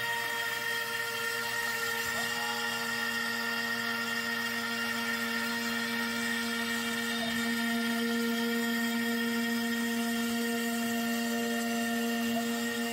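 CNC router spindle (a trim router) running steadily with a quarter-inch upcut bit cutting a shallow pass through MDF, a steady whine with several held tones.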